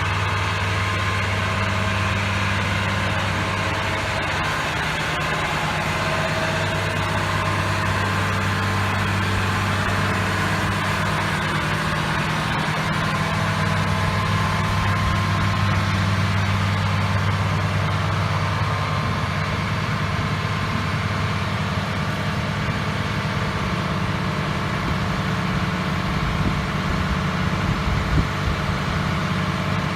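Hitachi EX400LC-1 excavator's diesel engine running steadily at a constant low hum, with a couple of brief knocks near the end.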